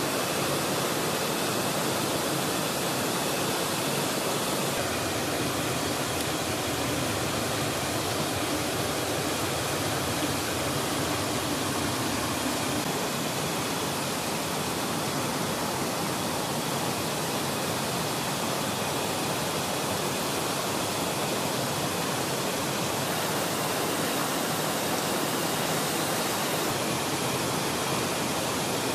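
Steady rush of a stream running through a rocky gorge, an even unbroken noise.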